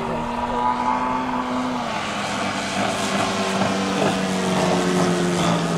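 Engine and propeller of a radio-controlled aerobatic model airplane running steadily as it flies low past. The engine note drops a little about two seconds in and grows slightly louder toward the end.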